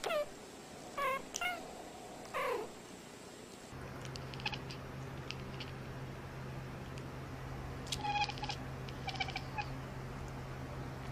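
Domestic cat meowing: four short meows falling in pitch in the first few seconds. Then a steady low hum comes in suddenly, with a few clicks and two brief bursts of quick chirping calls later on.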